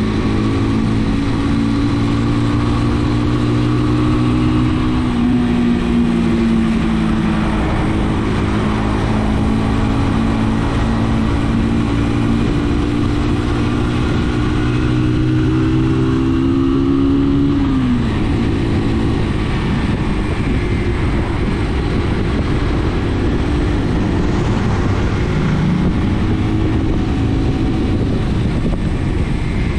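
Brixton motorcycle engine running under way over a steady rushing noise. Its pitch climbs gently through the first half, drops sharply about eighteen seconds in as the throttle is rolled off, then settles lower.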